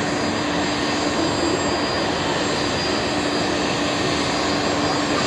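Fokker 100's twin Rolls-Royce Tay turbofans running at low taxi power: a steady jet rush with a low drone and a high whine held steady throughout.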